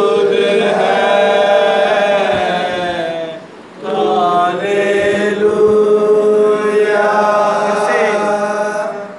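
Men's voices singing a worship song together in long held notes, with a short break for breath about three and a half seconds in.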